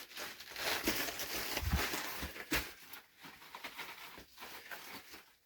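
Rustling and scuffing with a few sharp knocks as someone moves through loose dirt and debris in a cramped tunnel, loudest in the first three seconds and fading after.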